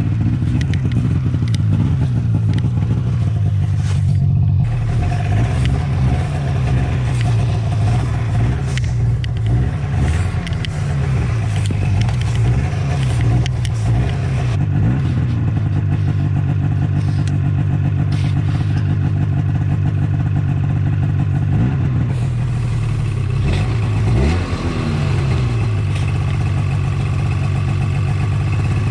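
Ski-Doo snowmobile engine running hard in deep snow, its pitch dipping and rising as the throttle is worked. The engine is on the verge of stalling, so the rider keeps revving it to stop it cutting out.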